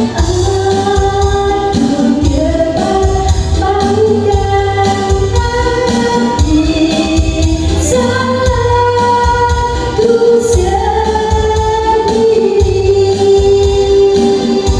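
Music with a sung melody of held notes over an accompaniment with a heavy, steady bass beat.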